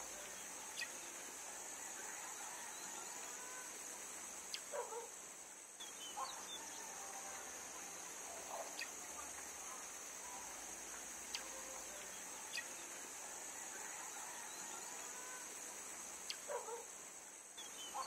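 Faint background ambience: a steady high hiss with a few short falling chirps, about four seconds and again near the end, and scattered faint ticks.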